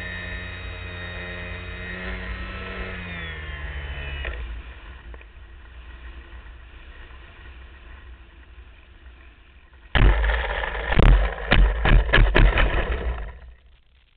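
LazyBee RC model plane heard from its wing: the propeller motor's steady drone drops in pitch and dies away about four seconds in as it throttles down. About ten seconds in the plane touches down, and there is a loud rough rumble with several sharp knocks from the wheels and airframe rolling over the dirt strip, which stops suddenly shortly before the end.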